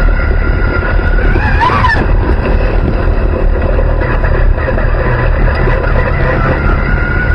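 Dirt late model race car's V8 engine running loud and steady at low speed, heard from the onboard camera inside the car, with a brief rise and fall in pitch about one and a half seconds in.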